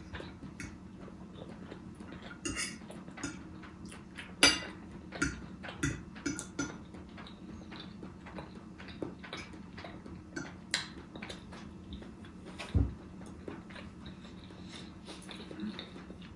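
Cutlery clinking and scraping against a plate while spaghetti is eaten: irregular sharp clicks, some louder than others, over a steady low hum.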